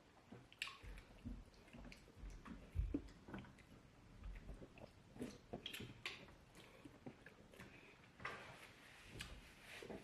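Faint eating sounds from fufu and fish light soup: wet chewing, lip smacks and small irregular clicks, with a short slurp-like noise near the end.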